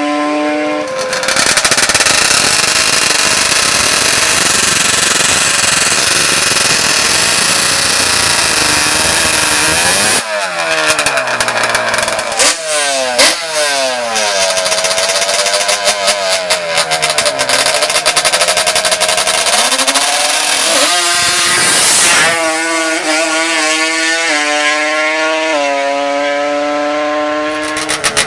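Drag-racing ATV engines. A steady high rev gives way, about a second in, to a loud full-throttle run of roughly nine seconds. The engines then rise and fall in pitch as they are revved, settling into a steadier held rev near the end.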